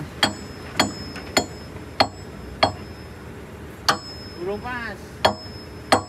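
Repeated hammer-like blows of steel on steel, each with a short metallic ring: eight strikes, roughly one every half second to second, with a longer pause midway.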